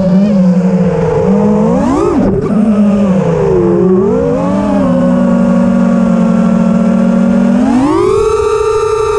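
Brushless motors (Dys Storm 2207, 2550 kV) of a 5-inch FPV racing quadcopter whining, the pitch rising and falling with the throttle. There is a quick rise and fall about two seconds in, then a steady stretch, then a sharp climb to a high held whine near the end that drops off just as it ends.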